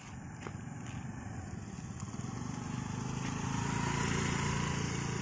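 Honda Activa scooter's single-cylinder four-stroke engine running steadily as the scooter rides past, growing louder as it comes close about four seconds in.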